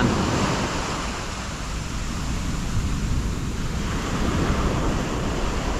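Ocean surf breaking in the shore break and foaming up the sand, a steady rushing wash that swells gently, with a low rumble of wind on the microphone.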